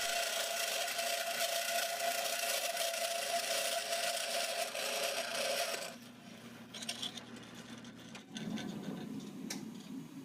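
Sears 12-inch band saw, converted to cut metal by slowing its blade to about 200 feet per minute, sawing through stock with a steady rasping scrape. The cut stops about six seconds in, leaving fainter sounds.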